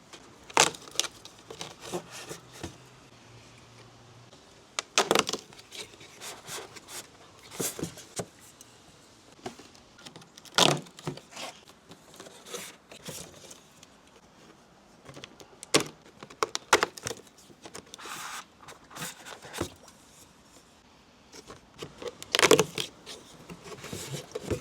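Cardboard and plastic packaging being handled and opened: scattered rustles, taps and short scraping sounds, with a handful of sharper clacks spread irregularly through the stretch.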